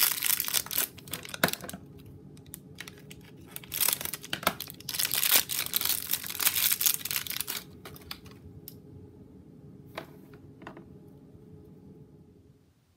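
Thin clear plastic bag crinkling and tearing as it is pulled open by hand, in two spells of crackling, then a few small clicks and rustles as the handling quiets down.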